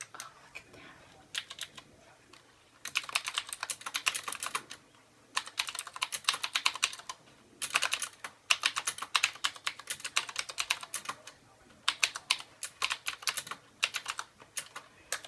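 Typing on a Qwerkywriter S typewriter-style mechanical keyboard: clicky keystrokes in fast runs of a second or more, broken by short pauses, with only a few scattered keystrokes in the first two seconds.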